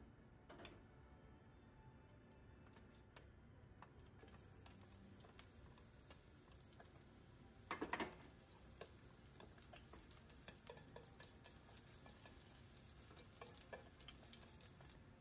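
Sliced garlic sizzling faintly in oil in a nonstick pan, with light taps of wooden chopsticks as it is stirred. A short clatter stands out about eight seconds in.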